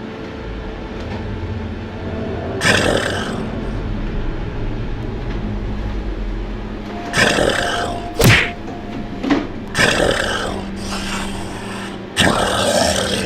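Monster roars and growls in a staged fight, coming in several loud bursts, with one sharp hit about eight seconds in, over a low steady music drone.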